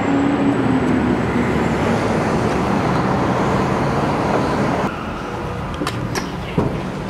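City street traffic noise: a steady wash of passing cars, with one vehicle's hum swelling and fading in the first second or so. About five seconds in, the traffic sound drops off sharply, and a few sharp clicks and taps follow.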